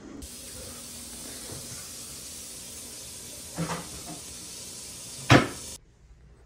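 A steady hiss with two knocks about a second and a half apart, the second much louder and sharper. The hiss cuts off suddenly near the end.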